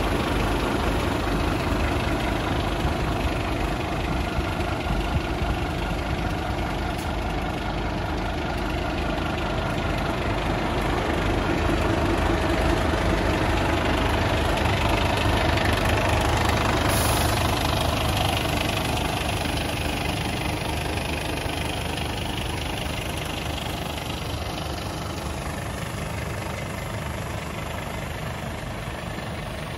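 Scania P280 truck's five-cylinder diesel engine idling steadily. It grows gradually quieter in the second half.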